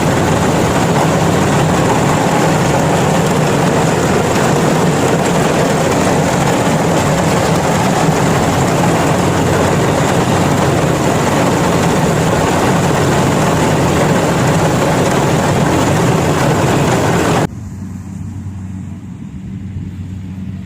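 Yanmar combine harvester running steadily under load: a loud, even engine and machinery noise. Near the end it drops abruptly to a quieter low engine hum.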